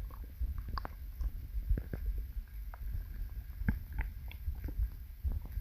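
Gassy stomach growling: a low, uneven rumble with many short gurgling pops and clicks scattered through it.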